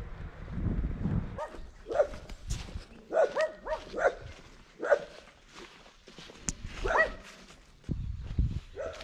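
A dog barking: short barks at uneven intervals, several in quick succession in the middle. Wind rumbles on the microphone during the first second.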